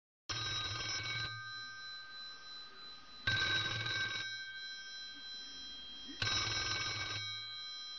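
Old rotary-dial telephone bell ringing, three rings of about a second each, roughly three seconds apart: an incoming call.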